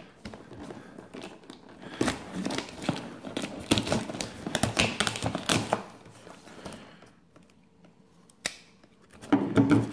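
Plastic shipping mailer being slit with a folding pocket knife and pulled apart: crinkling, rustling and tearing with many sharp clicks, then a quieter stretch broken by a single sharp click near the end.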